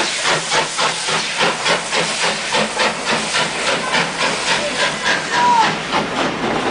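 Steam locomotive working, its exhaust beating in rapid, even chuffs of about four a second over a steady hiss of steam.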